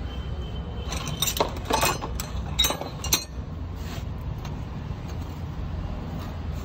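Metal hand tools clinking against each other in a quick cluster of about seven sharp strikes with short ringing tails, over a steady low rumble.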